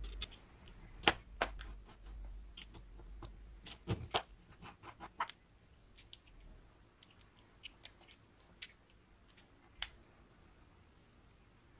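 Small metal parts of a cordless drill's keyless chuck being handled and fitted onto the spindle: scattered sharp clicks and taps of metal on metal. The taps come thickest in the first five seconds, with a few fainter ticks later.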